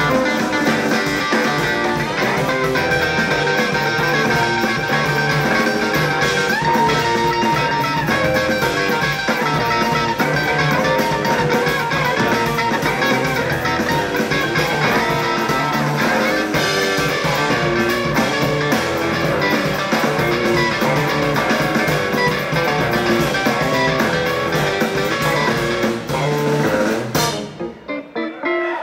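Live instrumental jazz quartet playing: two electric guitars over bass and drum kit, dense and steady. The band stops suddenly near the end.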